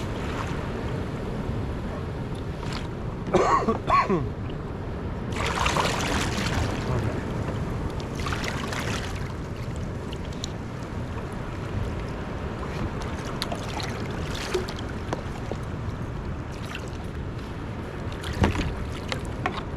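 Wind on the microphone and water lapping, with handling noises: a brief clatter about three and a half seconds in, two longer splashing swishes soon after, and a sharp knock near the end.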